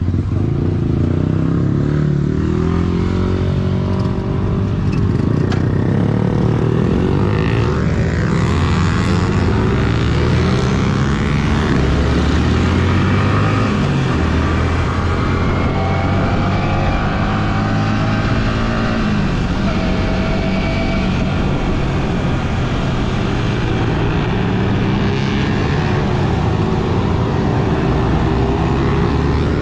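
Sport motorcycle engine running on the move, heard from on the bike, its pitch rising and falling repeatedly as the rider opens and closes the throttle.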